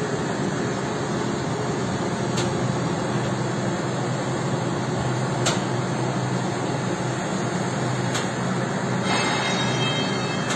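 A heavy vehicle's engine running steadily, an even low rumble with a faint hum.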